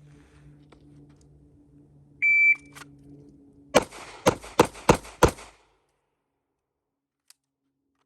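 A shot timer gives one short start beep, and about a second and a half later a pistol fires five shots in quick succession, roughly a third of a second apart.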